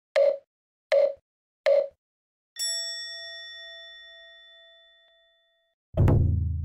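Intro sound effects: three short blips about three-quarters of a second apart, then a bright bell-like ding that rings and fades over about three seconds. A deep booming hit comes about six seconds in and dies away slowly.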